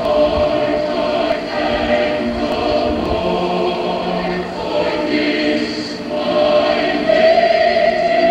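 A group of children singing together as a choir, with long held notes and the loudest held note near the end.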